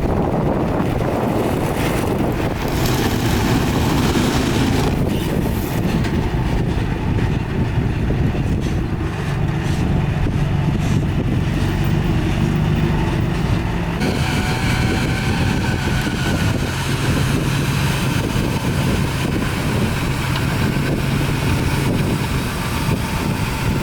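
Diesel engine of heavy earthmoving machinery running steadily, a continuous low drone; the sound changes abruptly a little past halfway.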